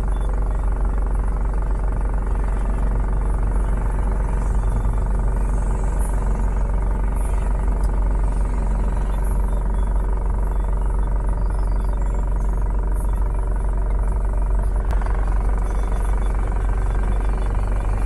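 Steady low rumble of a vehicle's engine idling while stopped, heard from inside the cab, with faint passing traffic outside.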